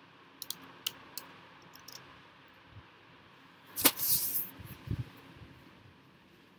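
Laptop keyboard keystrokes: a few light clicks in the first two seconds, then a loud sharp knock about four seconds in and a duller thump about a second later.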